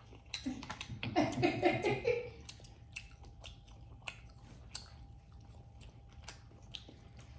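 Close-up chewing with many short, sharp, wet mouth clicks of people eating seafood-boil food, and a brief murmur of a voice about a second in.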